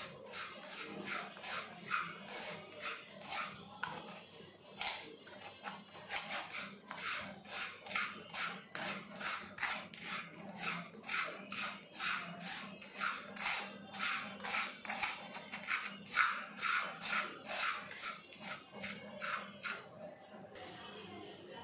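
Wooden spatula scraping and stirring crumbly roasted gram flour (besan) around a non-stick kadai, in quick rhythmic strokes about two a second. The strokes stop near the end.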